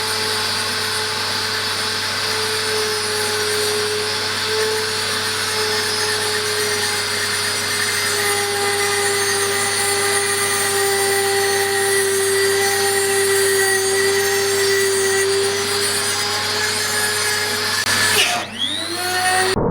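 Grinder working metal on a lathe: a steady, high, hissing whine of a power tool running. Near the end the sound breaks off briefly, then tones rise quickly in pitch.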